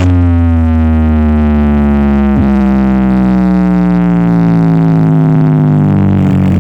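Carnival sound system played at very high volume, sending out a deep, buzzing drone chord that falls slowly and steadily in pitch.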